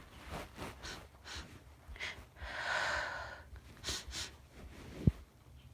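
A woman breathing and sniffing between big sneezes: short, noisy breaths and sniffs through the nose, with one longer breath about halfway through. A single sharp click near the end is the loudest sound.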